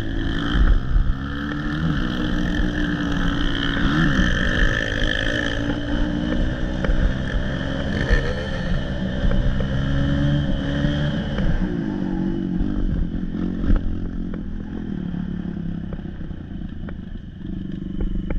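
Dirt bike engine running and revving up and down, its pitch rising and falling as the throttle changes. There is a sharp knock about two-thirds of the way through.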